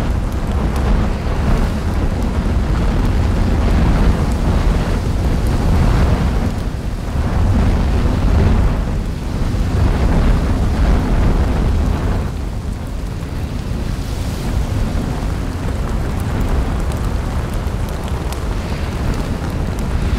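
Deep, continuous rumbling roar of an erupting fissure vent spattering lava, swelling and easing every second or two.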